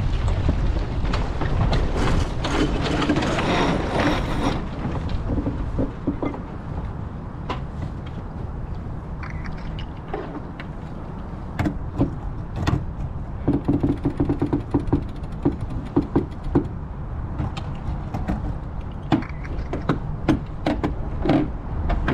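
Wind rushing over the microphone of a sailboat under way, loudest in the first few seconds. In the second half a run of sharp knocks and clicks comes from the boat's fittings and gear.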